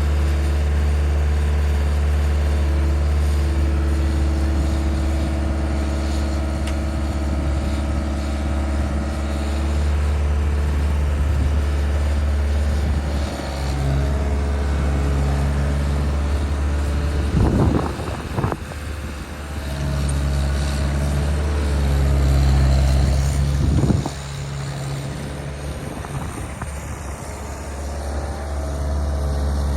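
Skid steer engine running steadily at working revs, its tone shifting as it works, with sharp knocks or clanks about 18 and 24 seconds in.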